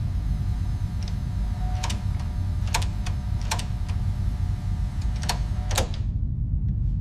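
Steady low mechanical rumble with a faint steady hum over it, and about six sharp clicks at uneven intervals.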